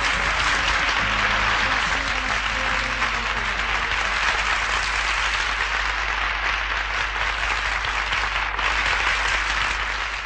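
Audience applauding steadily as the song's last instrumental notes fade out during the first few seconds.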